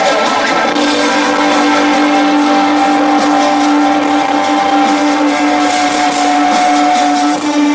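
Live industrial rock band playing a loud, sustained droning chord, with a low note held for several seconds and a higher note above it, no vocals.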